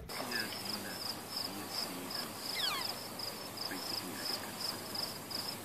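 Crickets chirping in a steady rhythm, about three chirps a second, with one short falling whistle about halfway through.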